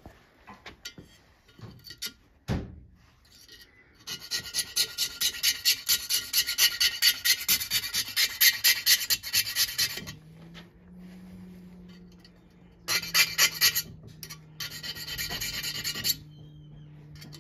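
Metal hand file rasping back and forth over the end of a two-stroke piston ring in quick strokes, about five a second, widening a ring gap that measured too tight. A long run of strokes begins about four seconds in, and two shorter runs follow near the end.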